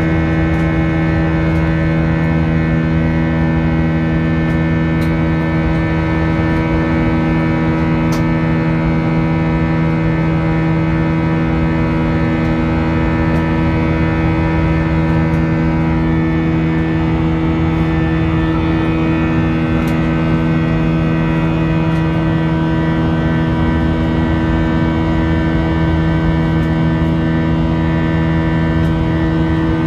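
Airliner cabin noise during the climb: the jet engines running steadily, heard from inside the cabin as a loud, even hum with several strong steady low tones.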